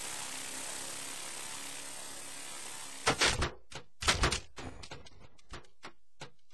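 Blade CP electric collective-pitch RC helicopter whirring steadily in flight, cutting off suddenly about three seconds in. Two bursts of loud sharp clattering knocks follow as it comes down, then a few lighter ticks.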